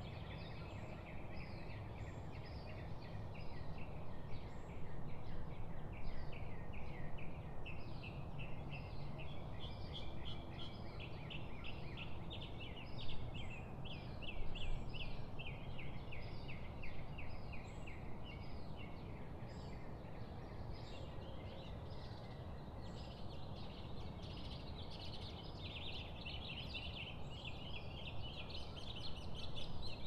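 Several songbirds chirping and trilling continuously, with quick overlapping notes, over a steady low background rumble.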